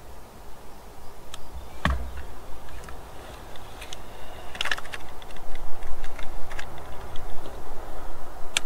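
Scattered small clicks and knocks from a fish lip-grip tool being handled and clamped onto a bass's lip for weighing, with a short cluster of clicks midway, over a low steady rumble of wind and water.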